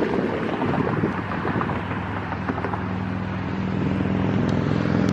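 A vehicle engine running outdoors, its steady low hum coming in about two seconds in and growing louder, over wind on the microphone.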